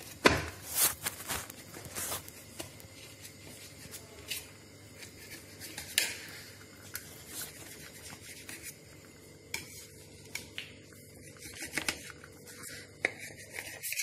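A knife cutting a cooked pizza on a ceramic plate, the blade scraping and clicking against the plate. Irregular scrapes and clinks, busiest in the first couple of seconds and thinning out toward the end.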